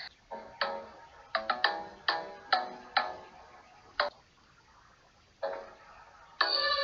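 Background music of single struck notes, spaced out and each fading quickly, with a pause of about a second in the middle. Louder, busier chiming music comes in near the end.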